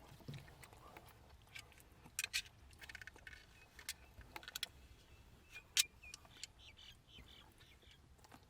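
A dog's collar tags jingling in short bursts as the dog moves, among scattered light clicks and handling noises; one sharper click stands out about six seconds in.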